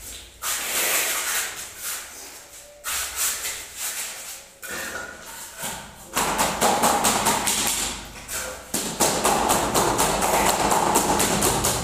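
Wooden screed board scraped back and forth across wet cement mortar to level a new floor. From about six seconds in it becomes a rapid, steady rhythm of gritty scraping strokes.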